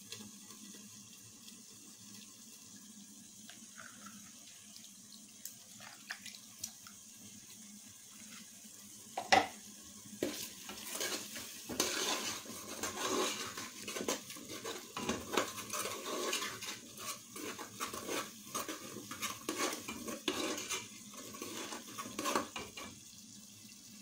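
A metal spoon stirring tomato stew in a metal cooking pot. After a few light clicks there is a sharp knock about nine seconds in, then steady clinking and scraping of the spoon against the pot, with some liquid sloshing, until shortly before the end.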